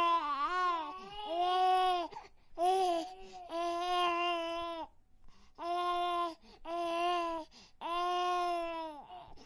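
A baby crying in a string of drawn-out wails, each about a second long, with short catches of breath between them.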